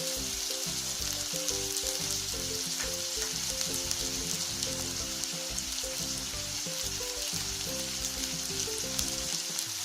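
Chopped vegetables sizzling steadily in hot oil in a frying pan as they begin to fry for veg fried rice.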